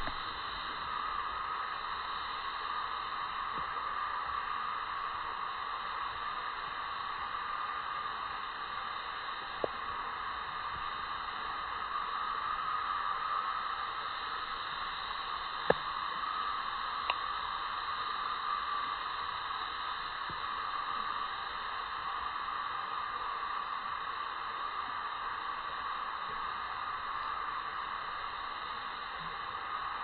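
Steady, even hiss of background noise, with a few brief clicks, the sharpest about halfway through.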